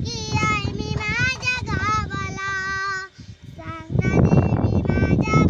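A young girl singing solo with gliding, ornamented notes and some long held notes. The voice drops away briefly about three seconds in. A loud, noisy rush then partly covers it before the singing comes back near the end.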